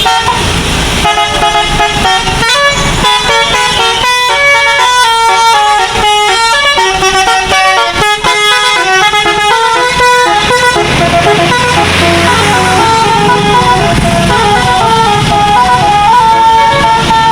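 Bus's 'telolet basuri' musical air horn playing a quick tune of short stepped notes, fast and fluttering at first, then longer held notes after about eleven seconds. The bus's engine runs underneath, most clearly in the second half.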